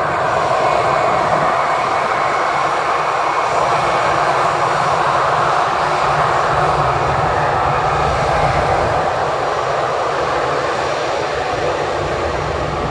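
Airbus A320 airliner's twin jet engines running at low taxi power as it rolls along the runway: a steady jet whine and rush that eases slightly near the end as the aircraft turns away.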